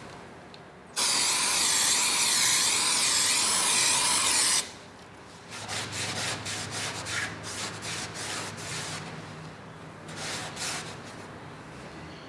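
Aerosol can of Sherwin DR60 dye-penetrant cleaner sprayed onto the aluminium hull in one steady hiss of about three and a half seconds, then a cloth rag rubbing the metal in short irregular wiping strokes, cleaning the surface before dye-penetrant crack testing.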